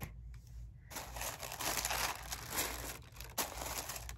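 Tissue paper inside a shoe box crinkling and rustling as it is handled and folded back, starting about a second in.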